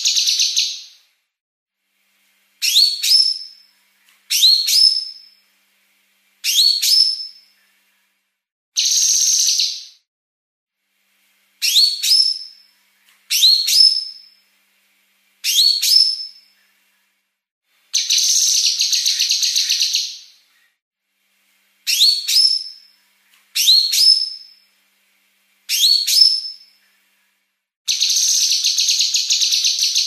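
Female cucak kinoi (blue-masked leafbird) singing a quick, packed song. Phrases come about every two seconds, mostly short groups of sharply rising whistled notes. Roughly every nine seconds there is a longer, rapid, buzzy trill lasting about two seconds: the 'besetan' rattle that bird keepers prize.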